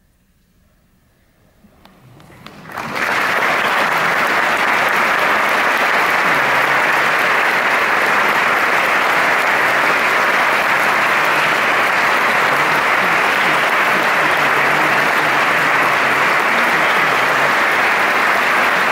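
Near silence for about two seconds, then a large audience starts clapping, swelling within a second into loud, steady applause that holds to the end.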